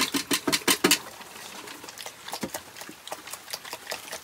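Piglets eating feed at a wooden trough: rapid, irregular chomping and smacking, dense and loudest in the first second, then lighter.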